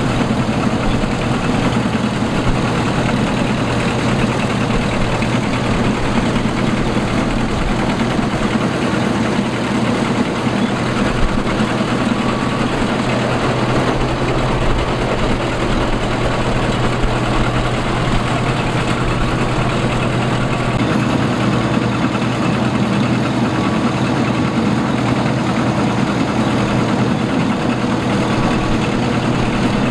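Combine harvester running steadily while harvesting rice: a constant engine drone under dense mechanical noise.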